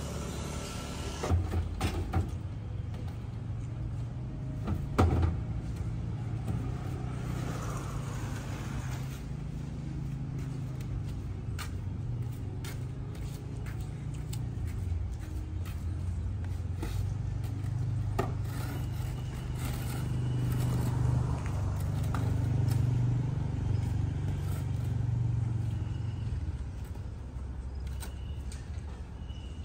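Steady low rumble of a running vehicle engine, a little louder in the second half, with scattered knocks and clatter as wooden stools are carried and set down on concrete, the sharpest knocks in the first few seconds.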